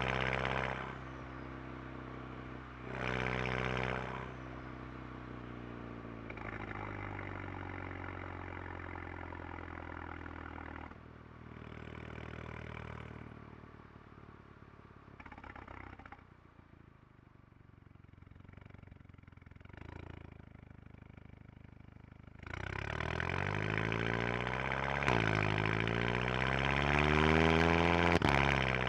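2011 Volkswagen GTI Mk6's turbocharged 2.0-litre four-cylinder heard right at the exhaust tip, through a Unitronics downpipe, resonator delete and the stock rear muffler not yet gutted. It idles with a couple of short throttle blips, then is revved up and down several times near the end, louder than at idle.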